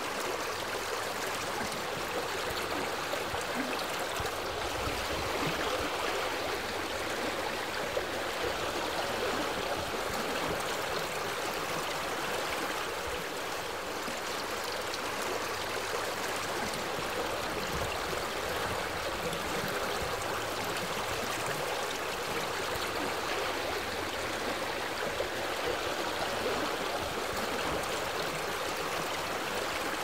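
Shallow rocky stream flowing over stones and down a small cascade: a steady, even rush of water that does not change.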